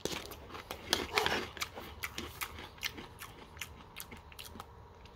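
Crunchy chewing of a mouthful of sweet corn cereal with marshmallows in milk: irregular crackling crunches, loudest about a second in, then fainter and sparser.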